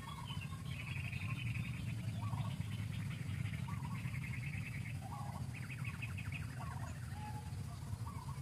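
Birds calling in the background: short chirps about once a second, with stretches of rapid trilling, over a steady low rumble.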